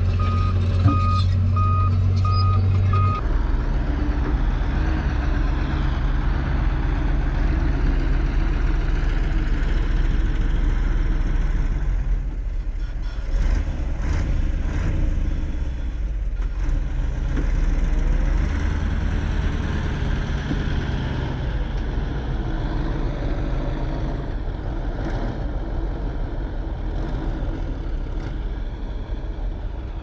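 Heavy diesel earthmoving machinery running, with a backup alarm beeping evenly for about the first three seconds and then stopping. The engine rumble carries on, swelling and easing with the load.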